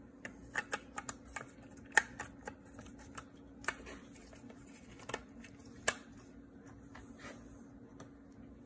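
Irregular plastic clicks and taps as the housing parts of an aerobic septic air pump are handled and pressed into place by hand, with the sharpest clicks about two seconds in and near six seconds. A faint steady hum runs underneath.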